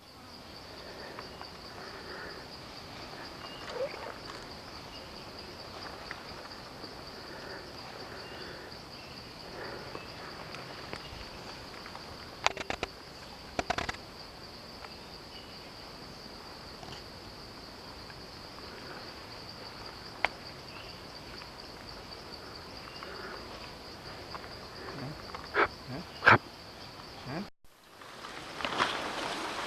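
Forest ambience with a steady high-pitched insect drone, broken by a few sharp clicks or snaps, the loudest near the end.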